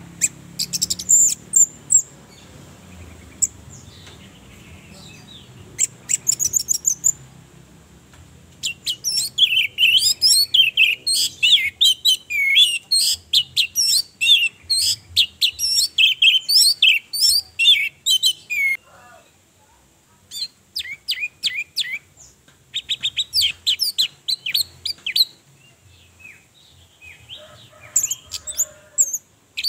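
Orange-headed thrush singing: short bursts of rapid, high chirping phrases, then one long, varied warbling song of about ten seconds a third of the way in, followed by further short bursts.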